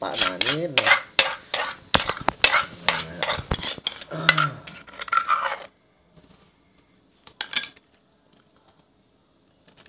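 A spoon scraping thick dipping sauce out of an earthenware mortar and knocking it into a china bowl: a busy run of scrapes and clinks for about five and a half seconds, then quiet but for one short scrape about two seconds later.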